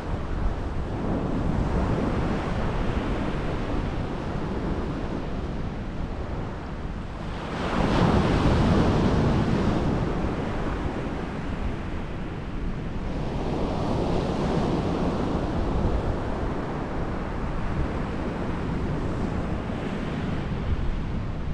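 Sea surf breaking and washing up the beach in swells, the loudest about eight seconds in, with wind noise on the microphone underneath.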